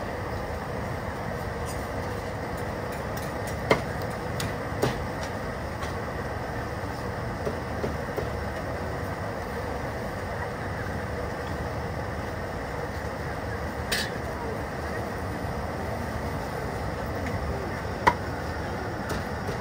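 Steady crowd hubbub and hum of a busy outdoor market, with a few sharp, isolated cleaver strikes on a wooden chopping board. The loudest strike comes near the end.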